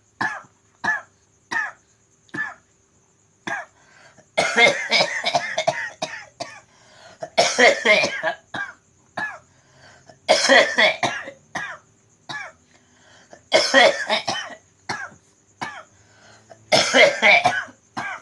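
A person coughing over and over: short single coughs in the first few seconds, then five long coughing fits about three seconds apart.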